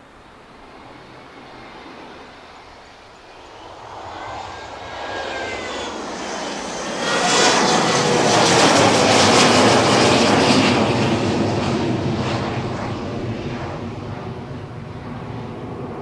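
Embraer E170 jet's twin CF34 turbofans at go-around power as the jet passes low overhead and climbs away. A jet roar with whining tones builds, is loudest around the middle, and slowly fades as it climbs off.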